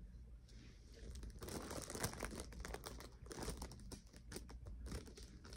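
Hands handling a fashion doll right up against the microphone: crinkling and rustling with dense little clicks and crackles, starting about a second in and dying down near the end.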